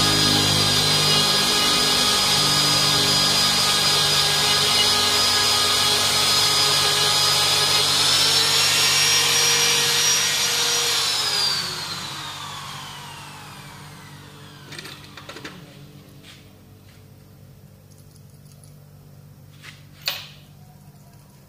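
Hand-held die grinder with a rotary burr running at a steady high whine while buffing the rubber of an inner tube around its valve. About eleven seconds in it is switched off and winds down, its whine falling in pitch over a couple of seconds, followed by a few light handling clicks and one sharp click near the end.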